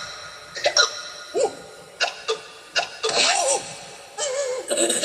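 A cartoon character's voice giving a string of short, separate vocal outbursts, coming closer together and louder near the end, over faint background music.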